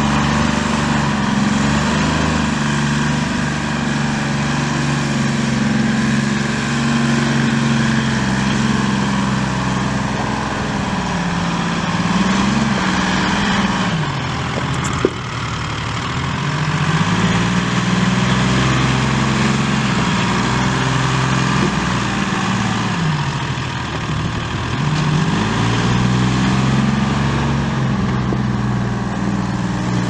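The Erie Bucyrus backhoe's three-cylinder diesel engine runs steadily, its speed dipping and recovering a few times, with a sharp click about halfway through.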